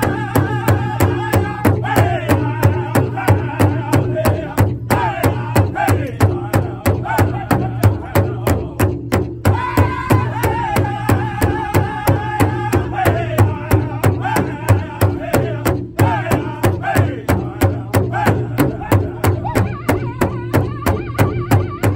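Powwow drum group at a big drum: several men strike the shared hide drum together in a steady, fast beat while singing a high-pitched song in unison over it, playing a teen girls' fancy dance song.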